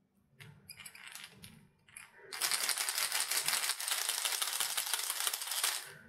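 Rattle balls inside a Bearking copy of the Deps Balisong Longbill 130SF minnow lure clattering as the lure is shaken in the hand. A few scattered clicks come first, then about three and a half seconds of fast, continuous rattling that stops just before the end.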